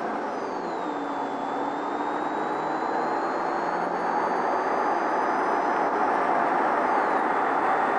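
Road and engine noise inside a moving police patrol car's cabin: a steady rush that grows slowly louder.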